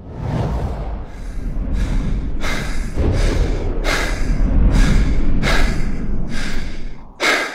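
Rhythmic heavy breathing, about one breath every two-thirds of a second, over a steady low rumble.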